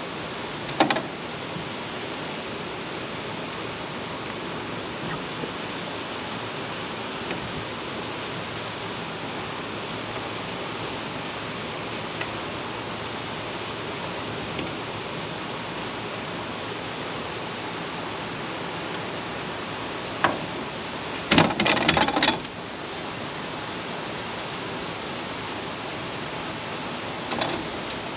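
Steady rushing of river water below a dam, with a few isolated clicks and a short clatter of knocks about 21 seconds in, the loudest moment.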